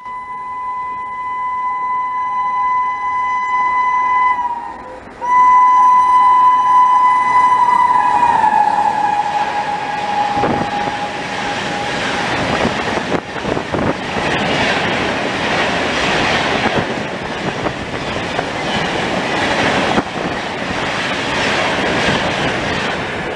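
Electric locomotive of the Howrah Rajdhani Express sounding two long horn blasts as it approaches at speed, the second louder and dropping in pitch as the engine passes. After that the coaches rush past at about 130 km/h with a steady rush of air and rail noise and the clickety-clack of wheels over rail joints.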